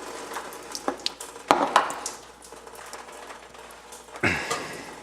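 Scattered metal clinks and knocks of pipe and tools being handled, with louder knocks about one and a half seconds in and again near the end, over a faint hiss.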